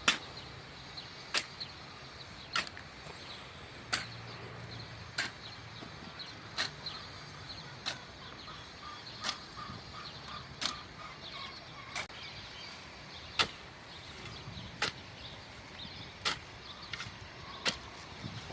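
Sharp clicks at a steady walking rhythm, about one every second and a half, from a plough being drawn by a walking horse: a knock or clink that comes once with each stride.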